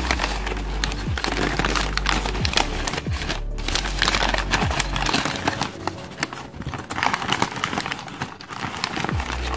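Newspaper wrapping being crumpled and pulled away from a potted cactus, a dense, irregular crinkling with quieter lulls, over soft background music.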